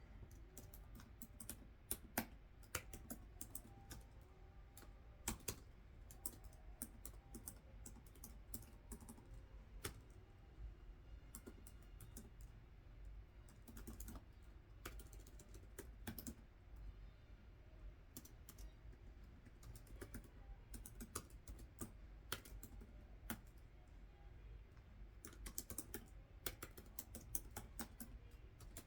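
Typing on a computer keyboard: faint, irregular key clicks in quick runs with short pauses, over a low steady hum.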